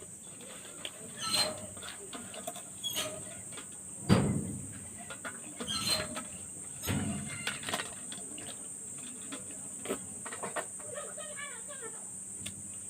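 Close-up eating sounds: chewing and lip-smacking with small clicks, over a steady high chirping of crickets. A louder thump comes about four seconds in.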